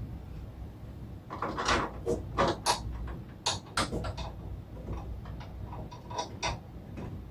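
Irregular knocks, scrapes and rustles of parts being shifted and handled to line up screw holes, over a faint steady low hum.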